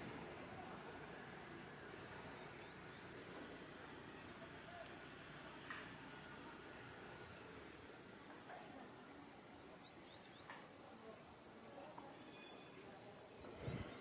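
Insects chirring in one steady, faint high-pitched drone, with a few faint short chirps in the middle.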